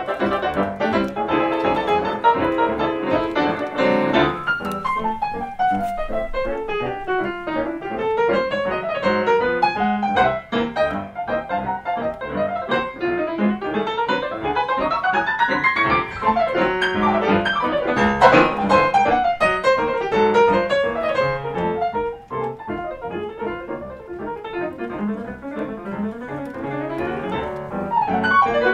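Jazz piano duet on two grand pianos. Fast runs sweep down and back up the keyboard several times over lower chords.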